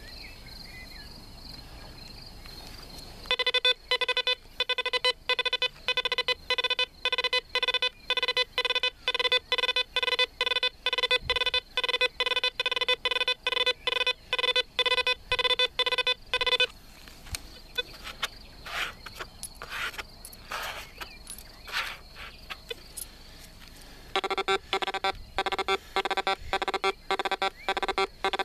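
Pirate Black Devil 2 PRO metal detector giving a rapid string of short, evenly pitched beeps, several a second, one for each coin and nail in a closely spaced row as the coil sweeps over them. This is a test of its recovery speed: it separates targets that lie close together. The beeping stops about halfway through, leaving only scattered soft clicks, then a second fast run of beeps starts near the end.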